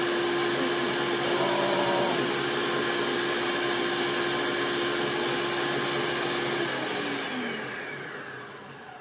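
Countertop blender running steadily, blending a thick mixture, with a steady motor whine; about seven seconds in it shuts off and the motor winds down, the whine sliding lower as it fades.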